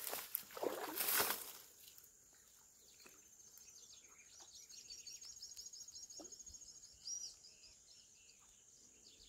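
A short rush of noise in the first second and a half, then a bird singing a fast series of repeated high chirps, about five a second, for several seconds before stopping.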